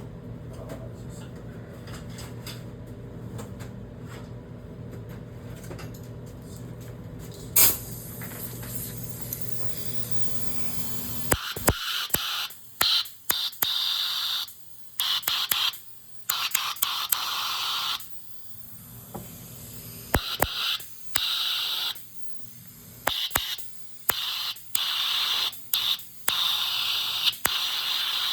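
Compressed-air blow gun fired in a run of short hissing blasts of varying length, aimed under a stuck seal on a hydraulic pump to try to lift it off. Before the blasts there is a steady low hum with one sharp click, and the hum stops as the blasts begin.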